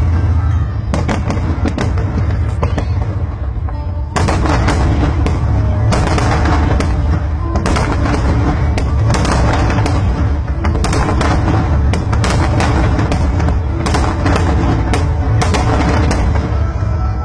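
Aerial fireworks going off in rapid, irregular bangs and crackles, the booms coming several a second, with music playing under them.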